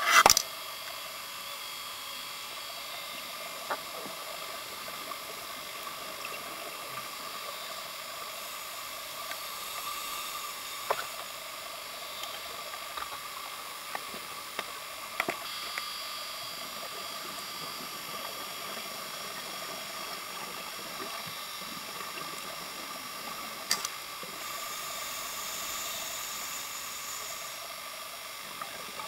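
Underwater sound picked up by a camcorder in its housing on a scuba dive: a steady watery hiss with a faint hum, a sharp knock at the start, a few faint clicks, and a stretch of brighter hiss late on.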